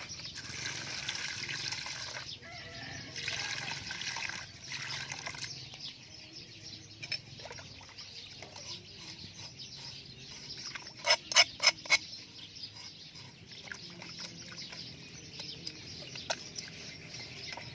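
Water splashing and sloshing in a steel bowl as hands wash and rub gutted catfish, busiest for the first five seconds or so, then quieter handling. A quick run of four sharp knocks about eleven seconds in is the loudest sound.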